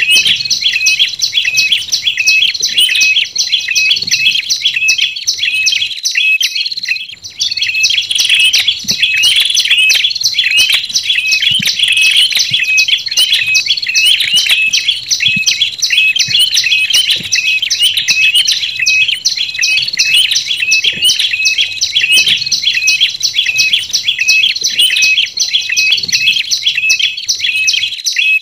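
Tailorbirds (prenjak lumut and red-headed prenjak) calling in a bird-lure recording: rapid, repeated high chirps, several a second, with a short break about seven seconds in.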